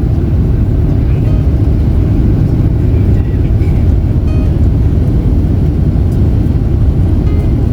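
Airliner cabin noise: the engines and rushing airflow make a loud, steady low rumble, heard from inside the passenger cabin.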